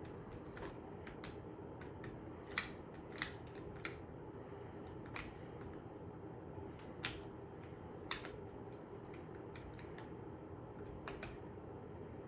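Lock picks working in a Master Lock 410 padlock's keyway: scattered sharp metallic clicks, about eight at uneven intervals, with a pair close together near the end, over a faint steady hum.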